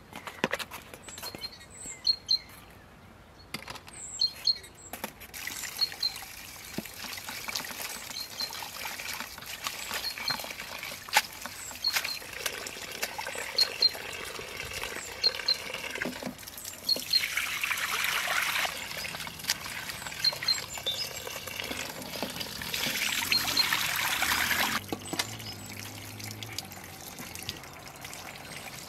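Water running and splashing into a stainless steel bowl as fresh greens are washed by hand at an outdoor tap, with two louder spells of pouring, one about 17 seconds in and one around 23 seconds. Small birds chirp repeatedly.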